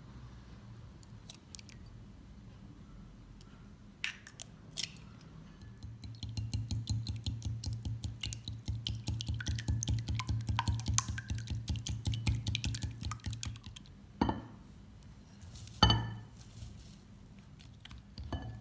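A whisk beating eggs in a glass bowl: a fast, steady clatter of strokes for about eight seconds, set between a few sharp knocks against the bowl.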